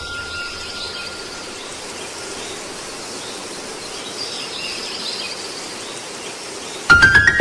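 Steady ambient hiss with faint high chirps, like insects or birds, under a ringing tone that fades out in the first second or so. Music cuts in suddenly with a loud chord just before the end.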